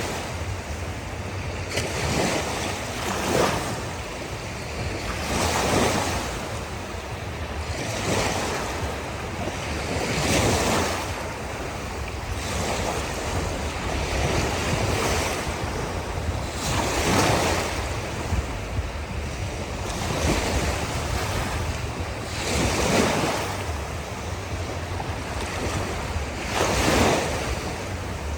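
Ocean waves breaking and washing onto a beach, each swelling and fading, one every two to three seconds, over a steady low rumble.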